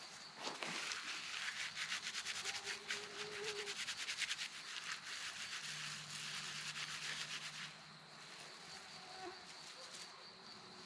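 Hands rapidly rubbing a bundle of dry tinder, a rough rasping of many quick strokes a second that stops about eight seconds in. Night insects chirr steadily on one high note throughout.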